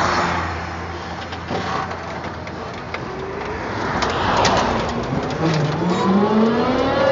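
Electric-converted classic Land Rover pulling away in second gear, low range: a whine from the electric drivetrain rising in pitch from about five seconds in, over a steady rushing noise.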